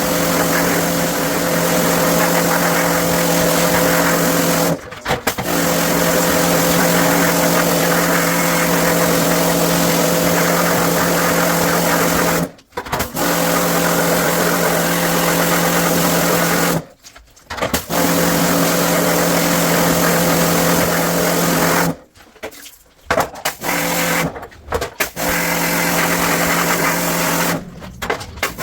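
An electric motor-driven machine running with a steady hum and hiss, cutting out abruptly for a moment several times and starting up again each time.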